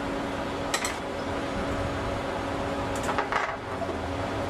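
Metal automatic-transmission parts clinking against each other as they are handled during a teardown: a quick double clink about a second in and a short cluster of clinks around three seconds in, over a steady background hum.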